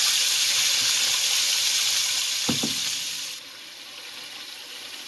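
Chopped tomatoes sizzling loudly in hot oil in a frying pan with sautéed onions, just added, with two quick knocks of a wooden spoon on the pan about two and a half seconds in. The sizzle drops suddenly to a quieter hiss about three and a half seconds in.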